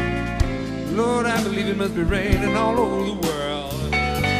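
Live band playing a slow soul ballad: lead electric guitar bending notes over bass guitar and drums.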